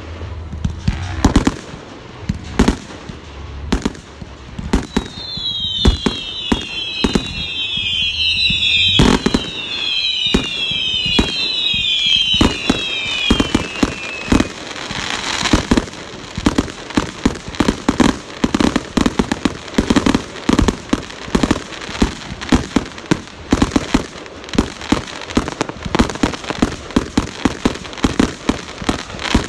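Fireworks going off: repeated sharp bangs, with a run of overlapping whistles falling in pitch from about five seconds in until about fourteen seconds, then rapid popping and crackling that goes on to the end.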